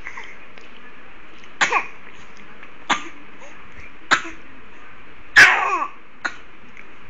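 A series of short coughs over a steady hiss, five in all, spaced about a second apart; the fourth, a little over five seconds in, is the loudest and longest.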